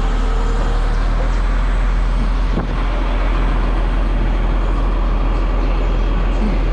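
Large diesel engine running steadily at idle, a constant low drone.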